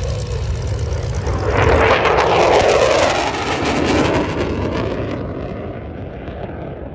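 RAF Eurofighter Typhoon fighter jet flying past, the roar of its twin EJ200 turbofans swelling to a peak between about two and four seconds in, with a falling whoosh in pitch as it goes by, then fading away.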